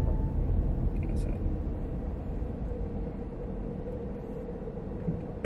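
Car moving slowly in city traffic: a low road and engine rumble with a steady hum. There is a sharp click near the end.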